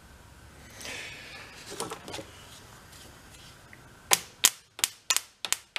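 Faint handling noise, then from about four seconds in a quick run of sharp metallic clicks, about three a second.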